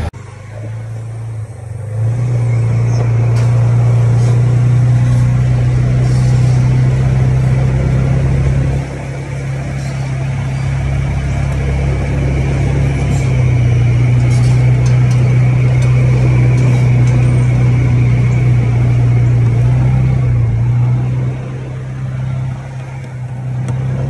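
Polaris side-by-side utility vehicle driving, its engine running with a steady low drone. The engine eases off briefly about nine seconds in and again near the end.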